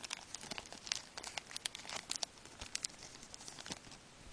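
Shiny 2011-12 Score hockey card pack wrapper crinkling as the pack is opened, a rapid run of small crackles that thins out near the end.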